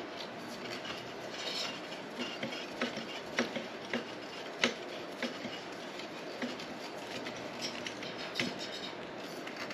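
A threaded metal pipe column being screwed by hand into a coat rack's base: scattered light metallic clicks and scrapes from the threads and fittings, the sharpest about halfway through.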